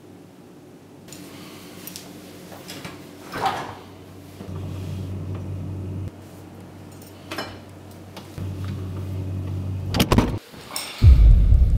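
A kitchen fridge door is opened and handled, with a low steady hum and a couple of rustling sweeps; the door shuts with sharp clicks and a thud about ten seconds in. Just after, a loud deep rumble sets in and is the loudest sound.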